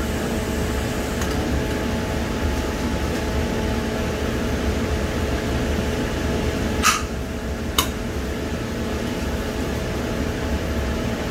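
Steady machine hum and rush of commercial kitchen equipment around a large pot on the burner. Two short, sharp knocks about a second apart come partway through.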